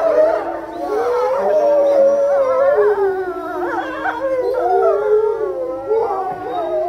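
A pack of gray wolves howling in chorus: several voices overlapping, each a long wavering tone that slides up and down in pitch.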